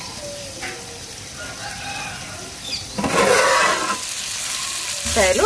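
Fish curry sizzling in an aluminium pot: about three seconds in, the lid comes off and a loud hissing sizzle lasts about a second. Faint bird calls sound before and after it.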